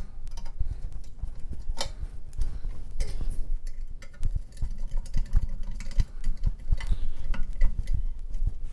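Scattered small clicks and taps of a screw and a metal adapter plate being fitted by hand to a Razor MX650 electric dirt bike's frame bracket, over dull low bumps of handling.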